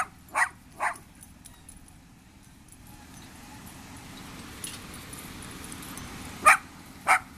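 A small dog barking: three quick barks at the start, then two more near the end.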